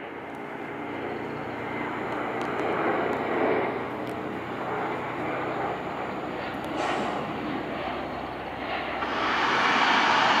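Embraer E170 jet airliner's twin turbofan engines running as it lands, a steady engine noise that grows louder from about nine seconds in.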